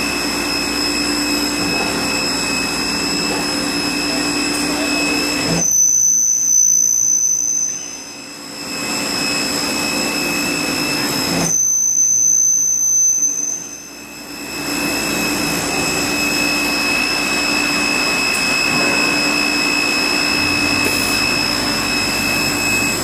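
Steady hum and whine of an automated beam sawing and drilling line running, with several high tones held throughout. Twice, about six and twelve seconds in, the noise changes abruptly for a couple of seconds and a sharper high tone sounds.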